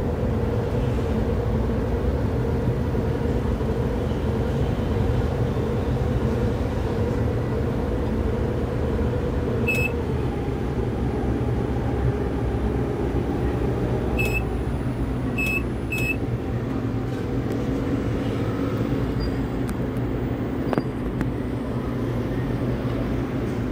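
Tower crane working as a load is hoisted: a steady low rumble with a faint motor hum that drifts in pitch. Four short high electronic beeps come in the middle, one alone and then three close together.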